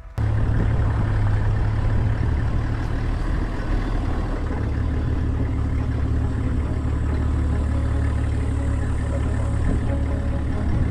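A 4x4 vehicle's engine running with a steady low rumble, with the noise of the vehicle rolling slowly along a bush track, heard from the vehicle itself. It cuts in abruptly at the start.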